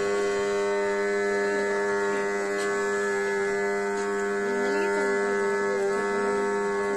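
A reed wind instrument holds one steady droning note at an even level, with a few faint gliding melody notes drifting over it.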